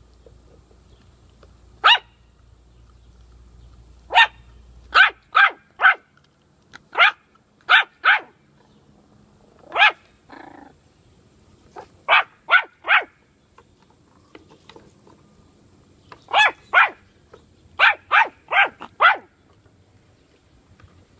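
Yorkshire terrier puppy barking in short, high-pitched yaps that come in quick runs of two to four with pauses between, about twenty in all.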